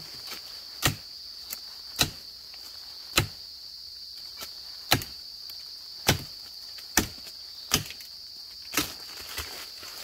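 Machete chopping at a branch: eight sharp strikes about a second apart, over a steady high-pitched drone of forest insects.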